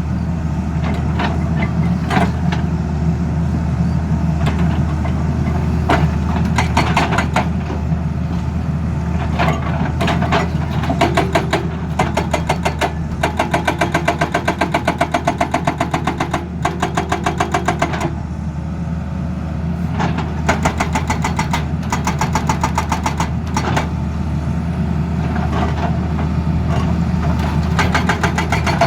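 Excavator-mounted hydraulic breaker hammering in spells of a few seconds, several rapid, even blows a second, stopping and restarting, over the steady drone of the excavator's diesel engine.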